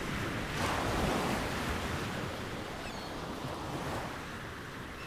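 Ocean surf washing, one wave swelling about a second in and then slowly easing off.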